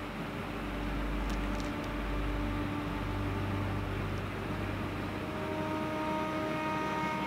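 Steady low mechanical rumble with a hiss. About five and a half seconds in, bowed-string music fades in over it.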